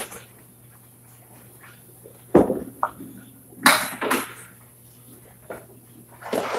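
Candlepin bowling balls and wooden pins knocking and clattering. There is one heavy knock about two seconds in, two sharper clatters a half second apart near the middle, and another knock near the end.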